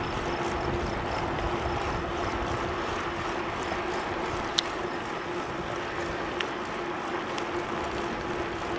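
Steady wind and riding noise from a camera carried on a moving bicycle, with a faint constant hum under it. A few sharp clicks, the clearest about four and a half seconds in, as the bike rolls over the trail.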